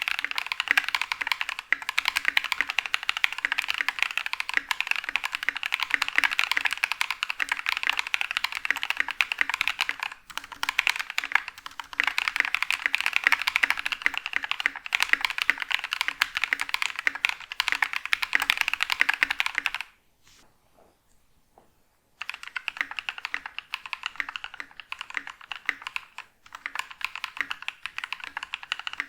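Fast, continuous typing on a mechanical keyboard fitted with lubed and filmed NovelKeys Cream linear switches, a dense stream of key strokes that stops for about two seconds roughly two-thirds of the way through, then resumes.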